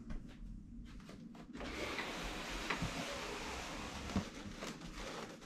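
Faint handling clicks and a couple of knocks over a low steady hiss, as a window blind is worked and raised.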